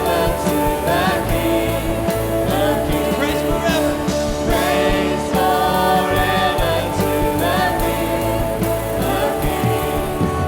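Live Christian worship music: a band playing with voices singing, held notes and melody lines.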